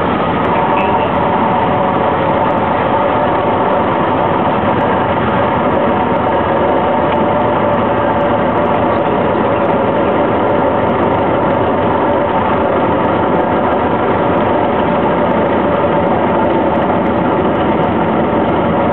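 Cessna 152's Lycoming four-cylinder engine and propeller drone, running steadily.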